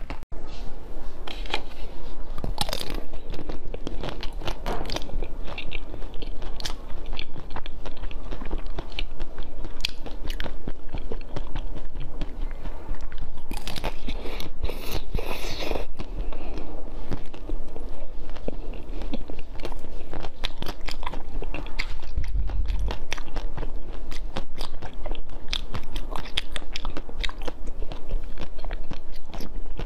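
Close-miked eating sounds: repeated bites and chewing of soft food, one bite after another.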